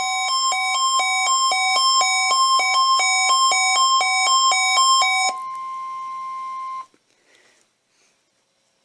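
National Weather Service warning alarm tone: a loud, steady single-pitch tone. Over it, a second alarm beeps in alternating pitches, about two or three beeps a second, until about five seconds in. The steady tone then runs on alone, quieter, and cuts off abruptly about seven seconds in.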